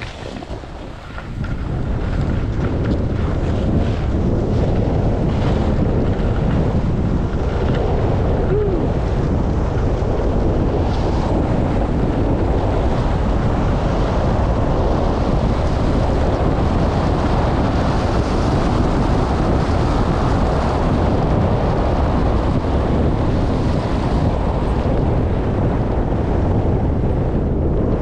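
Wind buffeting the microphone of a skier moving fast downhill, mixed with the hiss of skis running over snow: a steady, loud rush that builds up about two seconds in and eases off at the very end.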